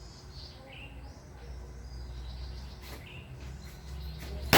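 A bird chirps repeatedly in short rising calls over a low background rumble. Right at the end comes a single loud gunshot, sharp and then dying away.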